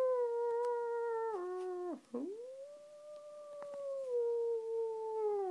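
Long drawn-out dog-style howling: one howl that steps down in pitch and breaks off about two seconds in, then a second howl that swoops up, holds, and slides down in steps near the end.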